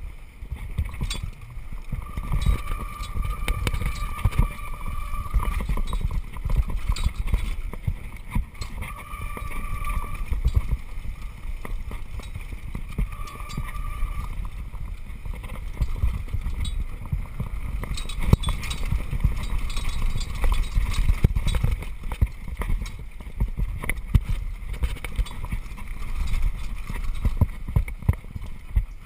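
Downhill mountain bike clattering and rattling over a rough, rocky dirt trail at speed, with wind and rumble on the microphone. Its brakes squeal with a steady high tone three times in the first half, the sign of overheated, cooked brakes.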